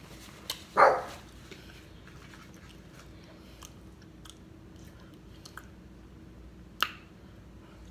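Chewing and small clicks of boiled peanuts being shelled by hand and eaten, with one louder short sound about a second in and a sharp click near the end.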